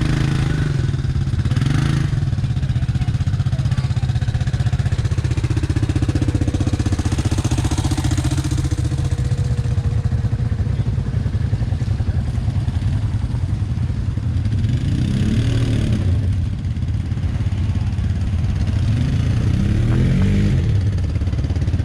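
ATV engine running steadily, with a couple of brief rises in pitch in the second half.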